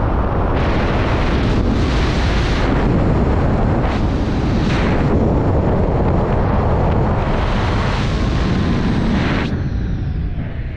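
Wind rushing over the microphone under an open parachute canopy: a loud, steady rumble with a hiss that swells and fades every couple of seconds, easing about a second before the end.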